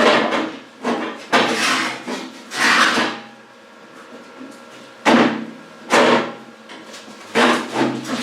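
Loud, irregular metal clangs and knocks from steel parts being worked at the bench, about seven hits, each dying away over about half a second.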